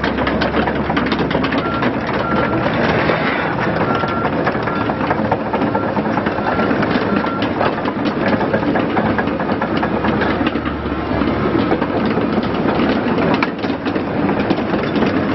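Komatsu PC130-8 hydraulic excavator travelling on its steel tracks: the diesel engine runs steadily under a dense clatter of track links. A short repeating beep sounds from about two seconds in until about halfway.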